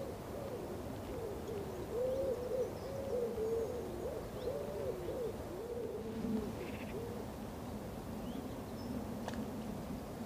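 Pigeons cooing in repeated soft phrases, with a second, lower cooing joining about six seconds in and a few faint small-bird chirps.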